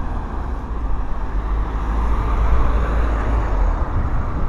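Steady deep rumble of wind buffeting the microphone of a moving camera, over a haze of street and traffic noise.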